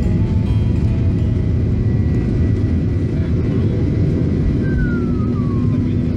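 Jet engines at takeoff power and the wheels rumbling down the runway, heard from inside the cabin of a Ryanair Boeing 737 on its takeoff roll: a loud, steady, deep rumble. A brief falling tone comes a little over halfway through.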